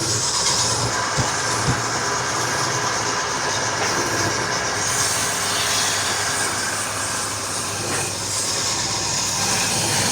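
Woodturning lathe running, with a steady hiss of a tool working the spinning wood and a low hum underneath; two light knocks come a little over a second in.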